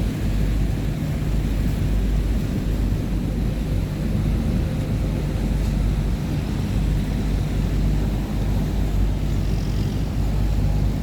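Chao Phraya Tourist Boat's engine running steadily while the boat is underway: an even, low drone.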